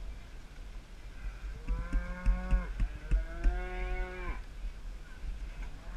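A cow mooing twice in quick succession: two long, drawn-out calls, the second starting right after the first ends. A steady low rumble runs underneath.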